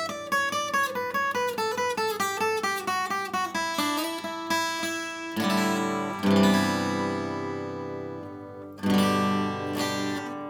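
Solid rosewood acoustic guitar played: a quick run of single picked notes falling in pitch, then strummed chords about halfway through and again near the end, each left to ring out.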